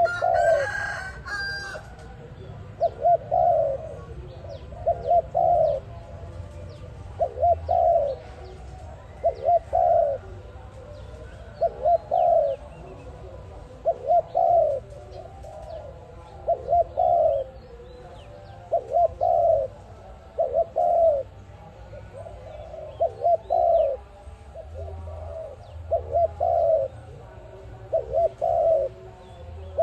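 A dove cooing over and over in short phrases of two or three quick coos, roughly one phrase every two seconds. A brief, higher sound rises above it near the start.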